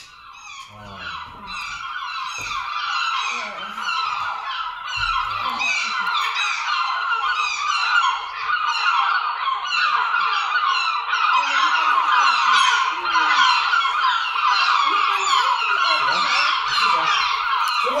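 Recorded chorus of many seagulls crying, played as a stage sound effect: a dense mass of overlapping calls that swells up over the first few seconds and stays loud.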